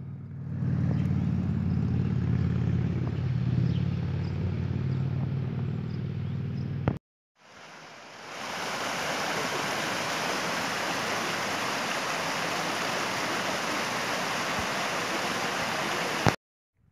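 A low, steady rumble for about seven seconds. Then a mountain stream rushing over rocks, a steady even rush that stops suddenly near the end.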